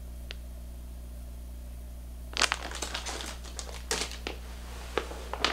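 Plastic tackle packaging crinkling and crackling as it is handled, in a quick irregular run of crackles starting a couple of seconds in, over a steady low hum.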